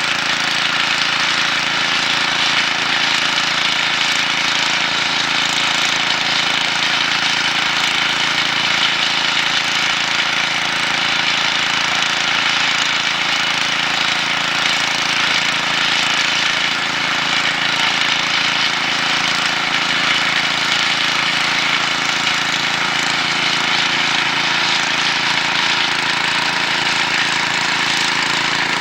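An engine running steadily at a constant speed, an even drone with a steady hum and no change in pitch.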